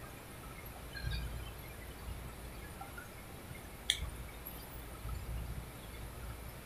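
Outdoor ambience: a low rumble that swells and fades, with faint chirps and one sharp click about four seconds in.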